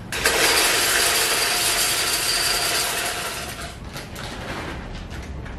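Corn seed pouring from a plastic bag into a plastic seed hopper: a dense, even pour of kernels that starts suddenly and lasts about three and a half seconds. It then tapers to a few scattered clicks.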